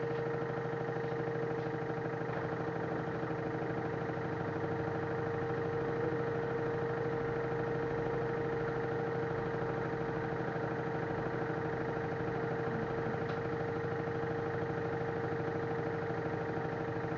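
LG F1089ND front-loading washing machine running steadily in its spin cycle: a constant mid-pitched motor whine over a low hum, without change.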